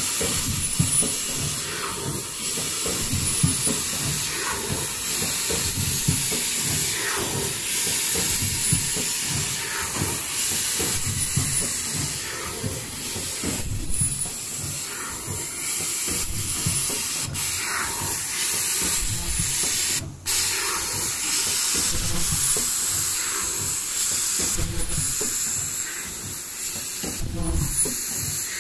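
Automatic folding-mask production line running: a steady hiss of compressed air with machine strokes recurring about every two and a half seconds, and short spells of a very high whistle.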